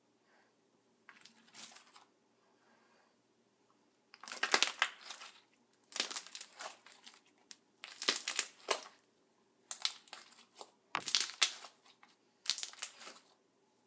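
Freshly activated glitter-glue slime being squeezed and kneaded by hand, making a run of short crackly bursts. Two faint ones come first, then from about four seconds in louder ones, roughly one every second and a half.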